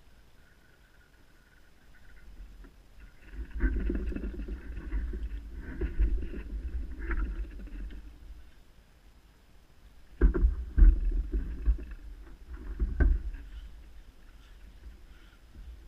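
Handling noise of a fishing pole being shipped out from a seatbox: low rumbling with sharp clicks and knocks, in two spells, about four seconds in and again from about ten seconds, the loudest knocks near the end of the second spell.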